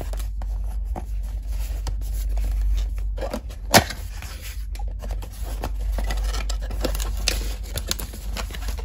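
Cardboard perfume box being handled and opened: scraping and rustling of card with scattered small clicks, one sharper click about four seconds in, over a steady low rumble.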